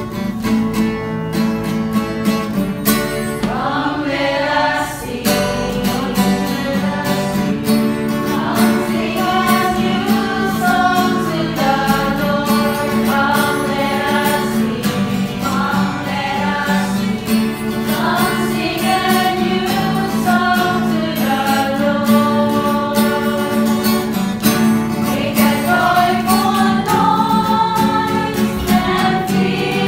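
A small group of women singing a worship song in English together over sustained instrumental accompaniment. The voices come in about four seconds in.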